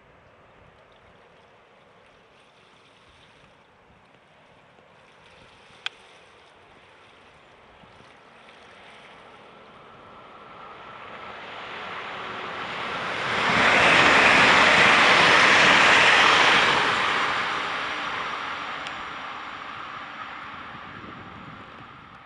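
Siemens Desiro multiple-unit train passing by. A rushing rumble of wheels and motors grows over several seconds, is loudest for a few seconds in the middle, then slowly fades away.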